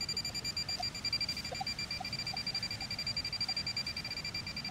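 Metal-detecting pinpointer beeping: a high electronic tone pulsing rapidly and almost without break, the sign that its tip is right over a shallow buried target.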